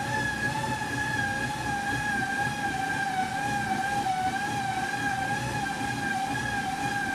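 Road bike tyres spinning on the drums of bicycle rollers under steady pedalling: a continuous whine over a low rumble, its pitch wavering slightly with pedalling speed.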